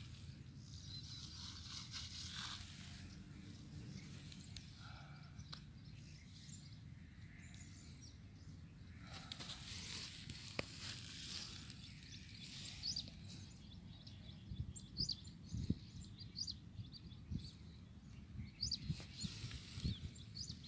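Quiet outdoor ambience: a steady low rumble, small birds chirping now and then in the second half, and a few brief clicks and knocks near the end.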